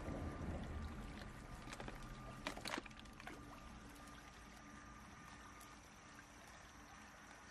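Shallow stream trickling faintly over rocks, with a few sharp knocks about two and a half seconds in as mussel shells and a wicker basket are handled on the rock.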